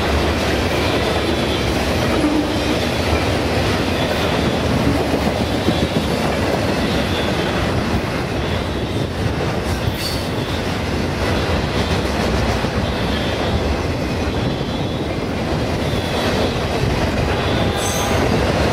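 Long intermodal freight train of trailers on flatcars passing steadily: continuous rumble and clatter of wheels on rail, with a faint high wheel squeal now and then.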